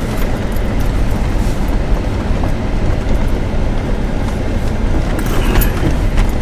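Off-road vehicle driving slowly over rough trail: a steady low engine and drivetrain rumble with light clattering and rattles.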